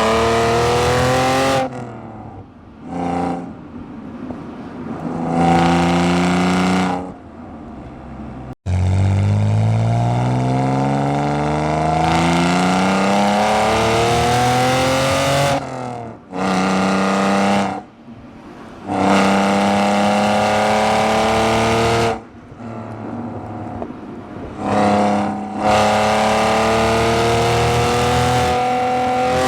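BMW E46 exhaust recorded right beside the tailpipe, so it comes through very loud. The engine note makes a few short rises and falls early on, then climbs steadily in pitch for several seconds at a time, dropping off briefly between each climb, like a car pulling through the gears.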